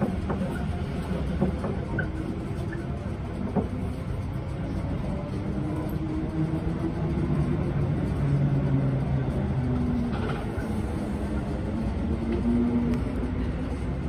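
Electric passenger train running at speed, heard from inside the carriage: a steady rumble of wheels on the rails, under a motor hum that shifts in pitch. A few light knocks in the first few seconds.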